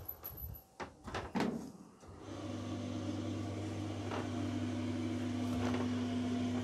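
A few clicks and knocks, then about two seconds in the Electrolux clothes dryer's motor starts and runs the drum with a steady hum. Faint brief squeaks come through twice: the high-pitched squeaking that the owner puts down to the newly fitted used idler pulley not turning freely, though it could be the drum bearing.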